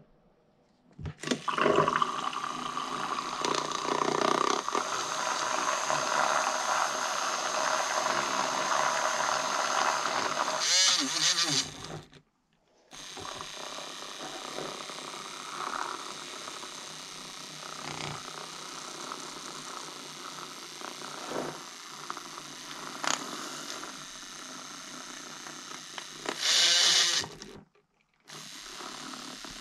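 Small battery-powered milk frother running in a glass jar, its whisk churning oil and melted beeswax into an emulsion. The whirring is loud for the first ten seconds or so and wavers before cutting out briefly; afterwards it is quieter and steady with a few clicks, and a short loud hiss comes near the end.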